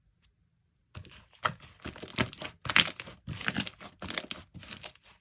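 Thick swamp-type slime being squeezed and pressed by hand, giving a run of about six squishes of roughly half a second each, starting about a second in.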